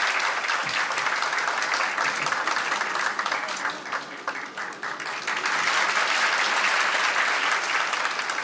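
Audience applauding, a dense patter of many hands clapping that thins briefly about halfway through and then swells again.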